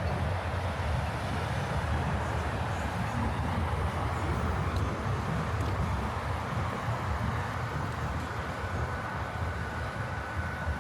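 Steady low rumble of city traffic, with no distinct events; a faint, steady high tone joins about eight seconds in.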